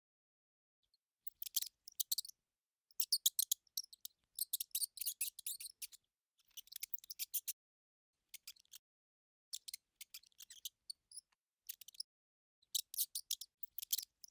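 Mice squeaking: quick runs of high-pitched squeaks in bursts of a second or two, with short pauses between.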